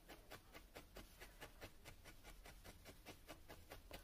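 Faint, rapid clicks of a felting needle jabbing through wool into a burlap mat, about six strokes a second in an even rhythm.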